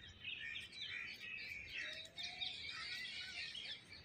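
Many birds chirping and twittering at once, their short calls overlapping without a break, over a faint low background rumble.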